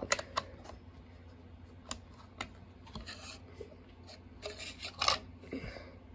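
Handling noise of LEGO pieces: a few sharp plastic clicks and short scratchy rubbing sounds as fingers work right over the microphone.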